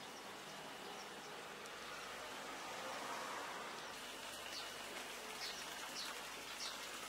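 Quiet outdoor background noise that swells a few seconds in, with short high chirps repeating through the second half.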